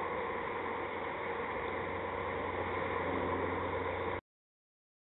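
Steady outdoor background noise with a low hum, no voices or distinct events, cutting off abruptly into silence about four seconds in.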